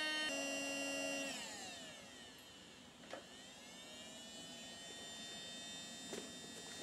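The gasifier's electric blower fan whines, winds down with its pitch falling, gives a sharp click about three seconds in, then spins back up with its pitch rising again.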